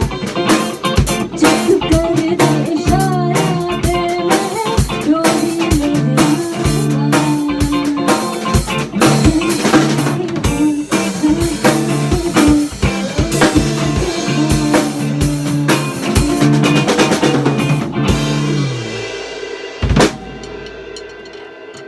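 Indie pop band's instrumental outro: a busy drum kit over bass and guitar. Near the end the band stops, and one final hit rings out and fades.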